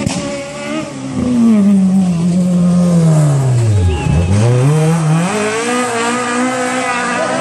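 Historic rally car engine revving hard as the car passes close at speed. Its note falls steadily, dips lowest as the car goes by about four seconds in, then climbs again as it accelerates away.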